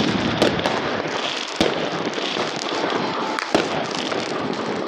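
Fireworks going off in a dense barrage: continuous crackling with a few sharp bangs standing out, one right at the start and others about half a second, one and a half seconds and three and a half seconds in.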